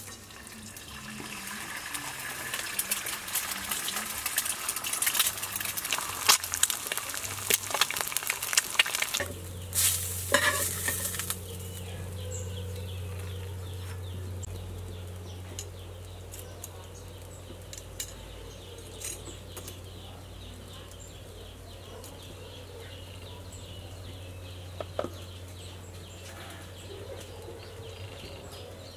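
Eggs sizzling and crackling as they fry in hot oil in a pan. About nine seconds in, the sizzling stops and gives way to a quieter steady low hum.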